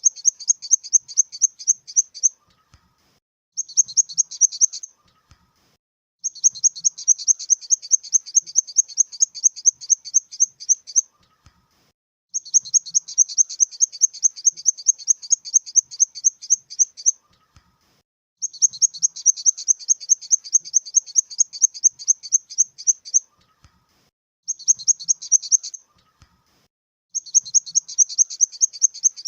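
Grasshopper stridulation sound effect: trains of high, buzzy chirps at several pulses a second, in bursts of one to five seconds with short pauses between them.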